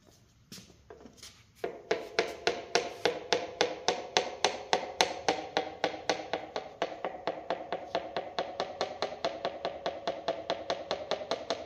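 Ratchet wrench clicking at the front of a small-block Ford 387 stroker engine block: an even run of sharp metallic clicks, about four or five a second, starting a couple of seconds in.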